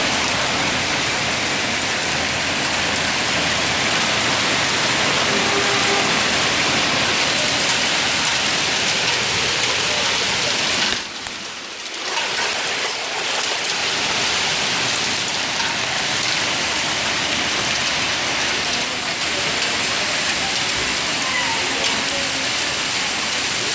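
Heavy rain pouring down steadily on hard surfaces during a storm. It dips briefly about eleven seconds in, then goes on as before.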